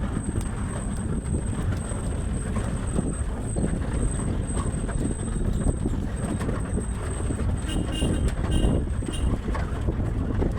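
JCB excavator's diesel engine running steadily with a low rumble, with wind buffeting the microphone.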